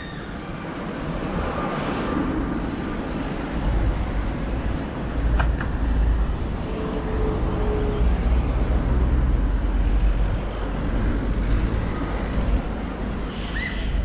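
A motor vehicle's engine rumbling past close by in street traffic. The low rumble builds about three seconds in and eases off near the end.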